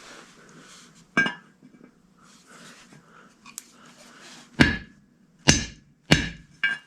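A hammer striking a 36mm axle nut socket set against the bushing in a Ford C6 transmission's tailhousing, driving the old bushing out. There is one sharp metallic strike about a second in, then four quicker blows in the second half, each with a brief ring.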